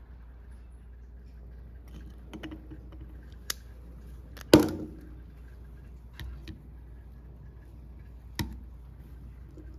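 Plastic and metal drill gearbox parts being handled and set down on a wooden bench: a few light clicks, a loud knock with a short ring about four and a half seconds in, and another sharp knock near the end.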